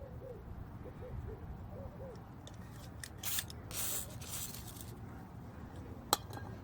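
Two short hisses of an aerosol can spraying oil onto the stuck tractor tire to loosen it, about three and four seconds in. Faint short hooting calls come before them, and a single sharp click follows near the end.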